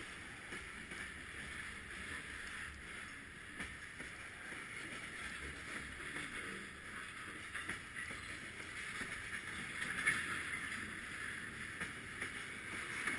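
Freight cars rolling past on the track: a steady hiss and rumble of steel wheels on the rails, with a few sharp clicks.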